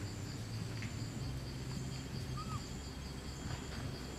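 Forest insects trilling steadily, a high rapid pulsing with a second, higher tone coming and going, over a low rumble. One short rising-and-falling note about two and a half seconds in.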